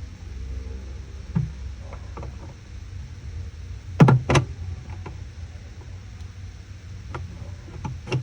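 Hard knocks and clunks on a stuck washing machine pulsator as it is worked loose: one knock, then two loud strikes in quick succession about four seconds in, and lighter clicks near the end, over a steady low rumble.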